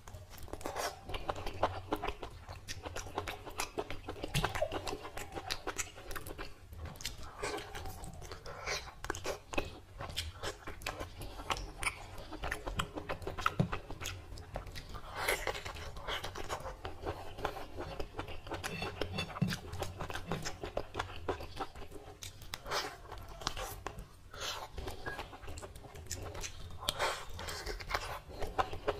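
Close-up chewing and wet mouth sounds of someone eating mutton curry and rice with his hand, with many irregular soft clicks and smacks.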